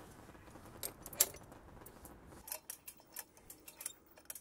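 Light metallic clinks and rattles of steel hooks, shackles and specimen holders on a tensile-test rig, scattered small clicks with a louder one about a second in.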